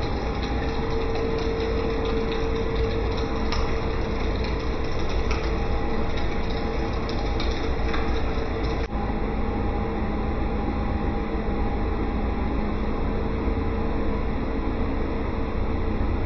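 Pool plant-room machinery running steadily, mainly the circulation pump's motor: a constant hum over a noise bed, with a few faint clicks in the first half.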